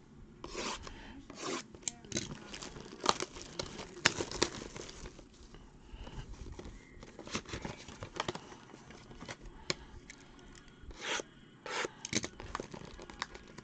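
Cardboard trading-card boxes being handled and slid around, with plastic wrap rustling and tearing in irregular scrapes and a few sharp clicks.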